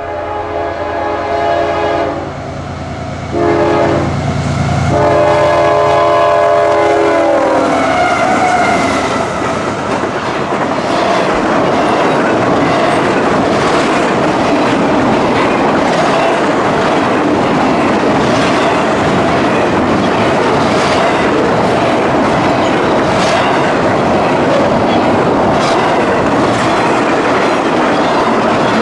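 A freight train's locomotive horn sounds several blasts, the last long one dropping in pitch as it goes by. Then the train rushes past with the clickety-clack of wheels over rail joints.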